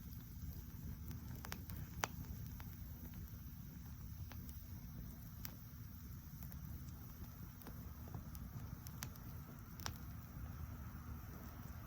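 Wood campfire burning, with scattered sharp crackles and pops at irregular intervals, the loudest about two seconds in, over a low steady rumble.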